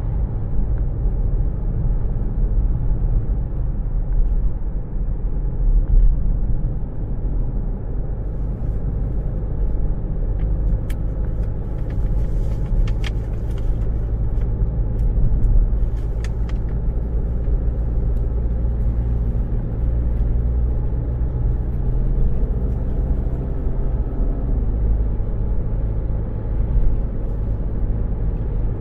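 Steady low rumble of a car's engine and road noise, with a few faint clicks near the middle.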